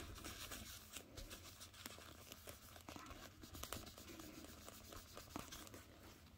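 Faint rustling and scraping of a white cloth rubbed by hand over a black jewelry testing stone, wiping it clean between scratch tests, with many small clicks throughout.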